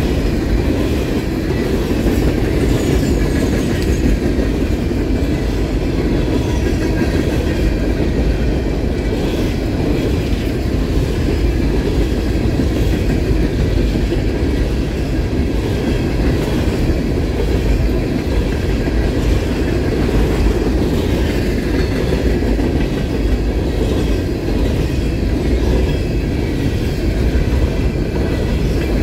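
Train rolling past at close range, its wheels clattering steadily over the rails, with faint high squeals now and then.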